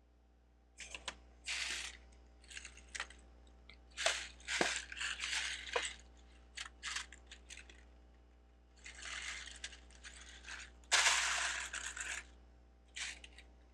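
Plastic Lego bricks clicking and clattering as they are handled and sifted by hand, in irregular bursts of rattling with short pauses between them. The loudest clatter comes about 11 seconds in.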